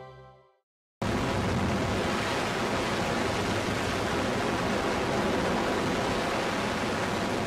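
Closing music fades out, then about a second in a steady rush of wind and engine noise starts abruptly, heard from aboard a microlight aircraft in flight, and holds level.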